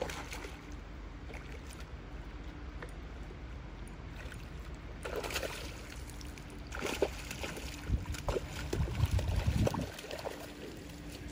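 Hooked trout splashing at the water's surface, with a sudden splash at the start and more splashes about halfway through. The heaviest, bunched splashing and sloshing comes near the end, as a landing net is pushed into the water and scoops the fish.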